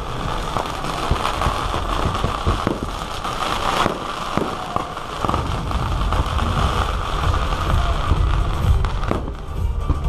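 Aerial fireworks shells bursting overhead in an irregular string of bangs and crackles, over a continuous low rumble from the display.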